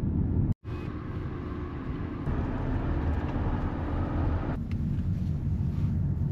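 Car on the move: a steady low road and engine rumble with hiss above it, broken by a split-second dropout about half a second in. The sound becomes duller a little over four and a half seconds in.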